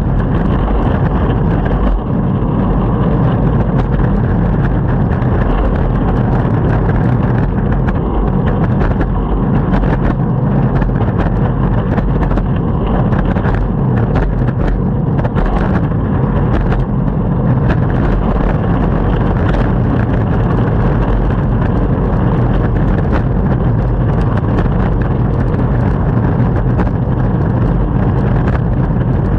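Longboard wheels rolling on city pavement: a steady, loud rumble with frequent short ticks and knocks.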